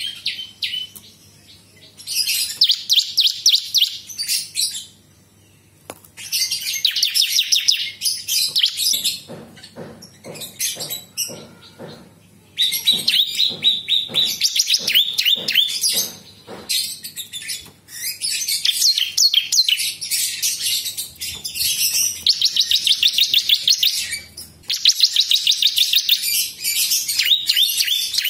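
Prinias (prenjak) singing: bursts of fast, rattling trilled phrases, each a second or two long, repeated over and over with short pauses between them.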